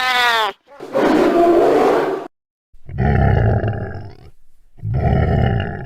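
Monster roar sound effects: a short pitched cry that rises and falls, a rough growl, then, after a brief gap, two deep roars with a falling whine over them.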